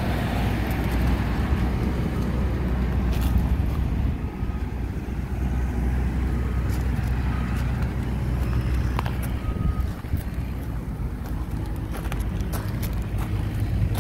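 Steady low engine rumble of motor vehicles or machinery.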